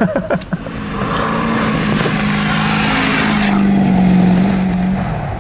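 A motor vehicle driving: a steady engine hum with road noise over it, the road noise falling away about three and a half seconds in while the hum carries on.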